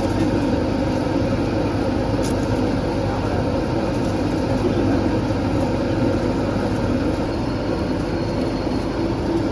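Corrugated-board slitter scorer machine running, a steady mechanical rumble with a low hum and no pauses.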